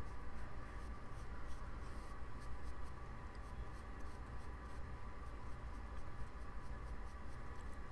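Quick, faint brushing strokes of a Real Techniques Expert Face Brush's dense synthetic bristles buffing liquid foundation into the skin, several strokes a second, over a steady low hum.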